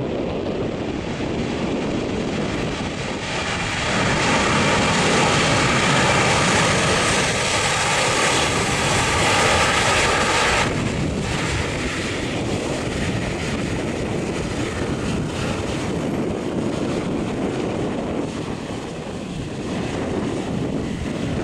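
Four-engine Airbus A340-313 jet engines in reverse thrust on the landing rollout: a steady jet roar with a whining fan tone. It is loudest for several seconds in the middle, drops off sharply about eleven seconds in, and then goes on as a lower roar as the aircraft slows.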